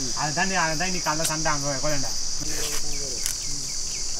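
A steady, high-pitched chorus of insects, crickets by the sound of it, in the background. Over it a man's voice is heard for about the first two seconds, and a few sharp clicks come later.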